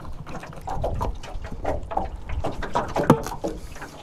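Knife cutting through a ballyhoo on a plastic bucket lid: a run of short, irregular scraping strokes, with one sharper knock about three seconds in.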